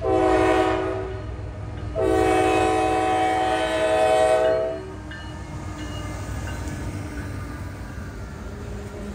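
Diesel freight locomotive's air horn sounding a short blast and then, about a second later, a long one of nearly three seconds: the closing short-long of the grade-crossing horn signal. The low rumble of the passing train runs underneath.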